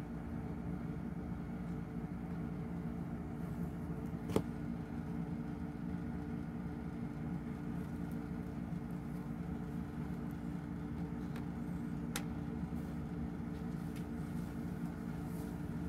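Steady low mechanical hum, made of several level tones, with one sharp click about four seconds in and a fainter click later.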